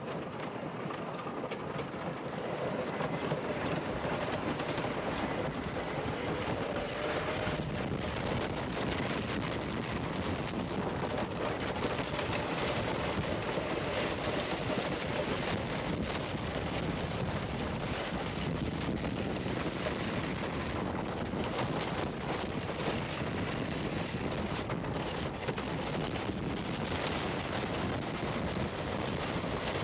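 Wooden roller coaster train running along its track, a continuous rumble and clatter of wheels on the wooden track that builds over the first few seconds as the train drops and picks up speed, with wind buffeting the microphone.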